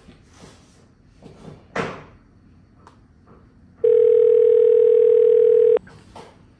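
A steady single-pitched telephone tone held for about two seconds, starting a little past halfway. Earlier there are faint rustles and one brief louder noise about two seconds in.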